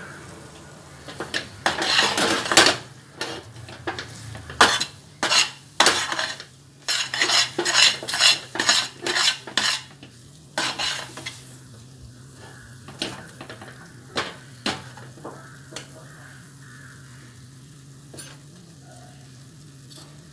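Perforated steel spatula scraping and knocking against a steel pan as a thick sesame and jaggery burfi mixture is stirred and pressed. The strokes come quickly for about the first ten seconds, then grow sparser and stop about fifteen seconds in.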